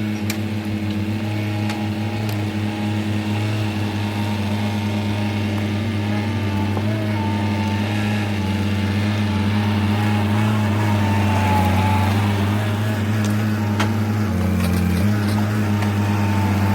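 Diesel engine of heavy land-clearing equipment running steadily, with a few faint clicks and knocks over it.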